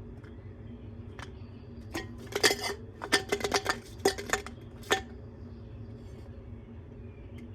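A stone knocking and clattering against the hard inside of a washing machine: a quick run of sharp clinks and knocks between about two and five seconds in, over a steady low hum.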